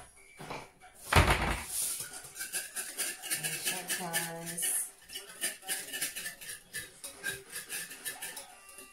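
A loud knock about a second in, then a kitchen utensil clinking and scraping against mixing bowls in many short, irregular clicks as ingredients are scooped and stirred.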